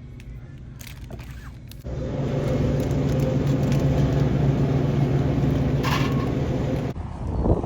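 A steady mechanical hum with a low drone, starting abruptly about two seconds in and cutting off suddenly near the end.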